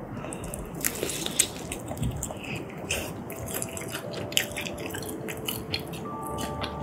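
Close-miked wet chewing of tteokbokki, spicy rice cakes and noodles in thick sauce: a bite, then sticky, squishing mouth sounds with many irregular sharp clicks.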